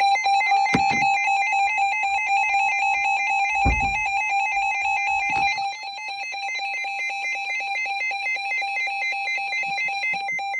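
Weather radios sounding their alert for a flash flood warning: a steady high tone with rapidly warbling alarm beeps layered over it. A few dull thuds come in the first half, and the alarm drops in loudness about six seconds in.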